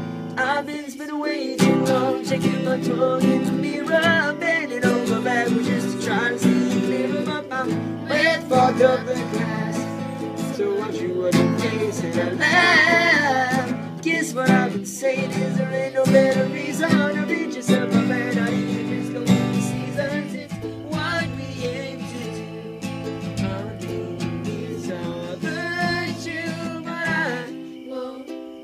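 Acoustic guitar strummed and picked in a song, with a voice singing along.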